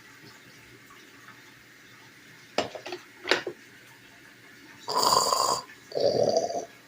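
Drip coffee maker brewing: two short gurgling pops a little before the middle, then from about five seconds in a loud, alternating hiss and lower gurgle, each under a second, repeating.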